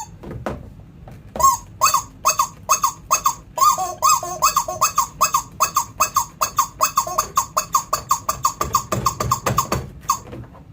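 Rubber chicken squeezed over and over in quick chest-compression pumps, giving a long run of short squawks at about four a second. The run starts about a second and a half in and stops near the end.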